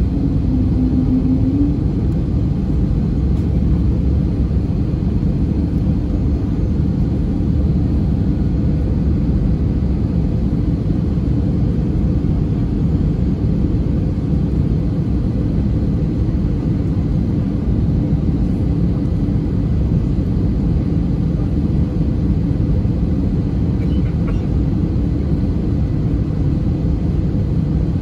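Steady cabin drone of an Airbus A320neo's Pratt & Whitney PW1100G geared turbofan engines and airflow, heard from a window seat over the wing while the airliner descends on approach. The noise is a constant low rumble with little change in level.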